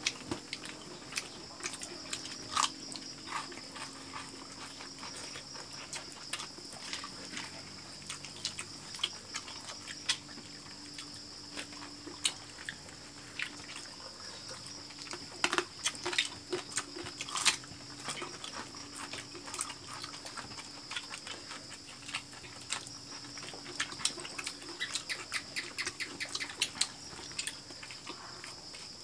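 People eating with their hands: chewing, lip-smacking and small clicks of fingers, bones and dishes, coming irregularly throughout, over a steady high-pitched hum in the background.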